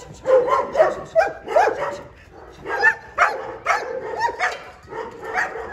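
German Shepherd dogs barking over and over, several barks overlapping, a few a second.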